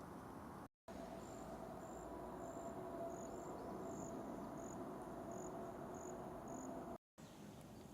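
A cricket chirping, short thin high-pitched chirps repeating a little under twice a second, over a faint steady hum and outdoor hiss. The sound drops out briefly twice at cuts, just under a second in and near the end.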